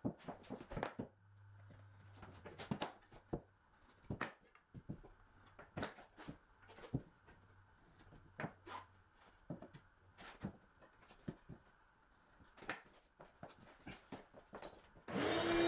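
Scattered light knocks and clicks of engineered hardwood planks being handled, tapped together and set down into floor adhesive. Near the end, a loud motor starts abruptly and runs with a steady hum.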